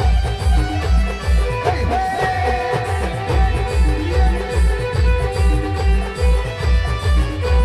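Adivasi band music: a steady heavy bass drum beat under held notes, with a lead melody that slides and wavers in pitch from about two seconds in.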